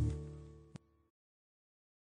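The last held chord of an accordion-led folk dance tune fading out within the first half second, followed by a single faint click and then silence: the gap between two tracks of the album.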